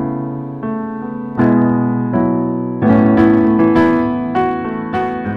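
Background piano music: a chord is struck every half second to second and left to ring out, and from about halfway higher notes join in over the chords.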